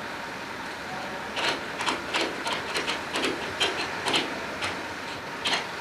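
Tie-down strap ratchet being worked to tighten a cargo strap: a run of sharp, irregular clicks, a few a second, starting about a second and a half in, over a steady hiss.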